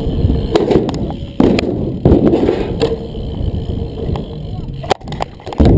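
Mountain bike rolling over concrete: tyre rumble and wind buffeting the chest-mounted microphone, with rattles and sharp knocks from the bike. There are sudden louder bumps about one and a half and two seconds in, and again near the end.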